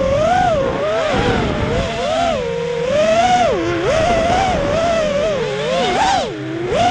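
FPV drone's electric motors and propellers whining, the pitch swooping up and down quickly and constantly as the throttle changes through the turns.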